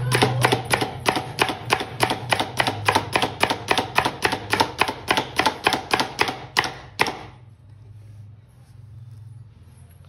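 Knife chopping vegetables finely on a cutting board with rapid, even strokes, about five a second. The chopping stops about seven seconds in.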